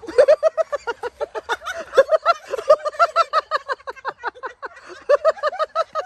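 A person laughing hard: a long, unbroken run of quick, high-pitched laughs, each dropping in pitch.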